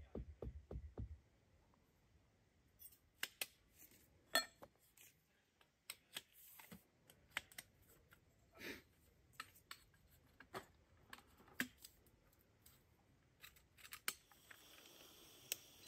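Faint, irregular clicks and light taps at scattered moments, with a soft hiss rising near the end.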